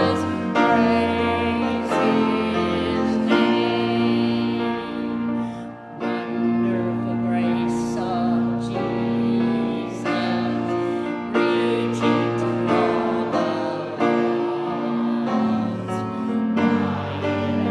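Church congregation singing a hymn with piano accompaniment, a lead voice with vibrato carrying the melody over held chords.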